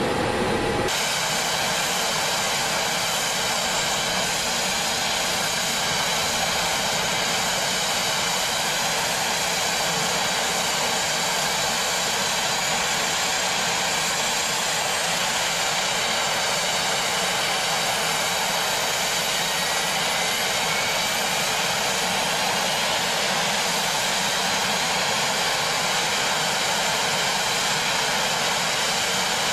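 Shorts 360's Pratt & Whitney PT6A-65R turboprop engines running steadily just after start, stabilised at ground idle: a constant turbine whine with many high tones over a rushing noise. Heard inside the cockpit at first, then from outside the aircraft from about a second in.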